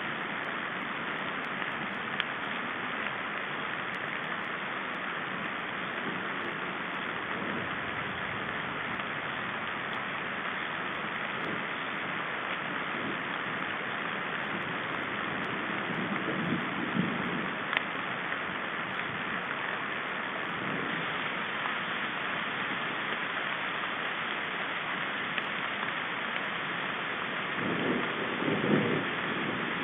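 Steady rain falling on the forest canopy and the nest, an even hiss with no break. Twice, about midway and near the end, it briefly swells with louder, lower-pitched patches.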